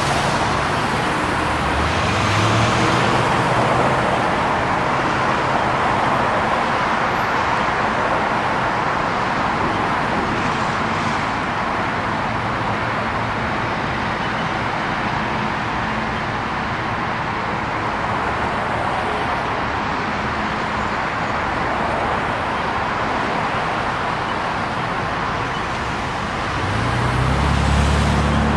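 Steady road traffic noise from cars driving past close by, a constant hiss of tyres and engines. An engine's note rises as a car passes close about two seconds in, and again near the end.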